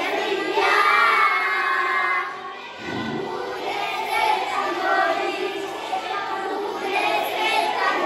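A group of young children singing together, with a short break between phrases about three seconds in.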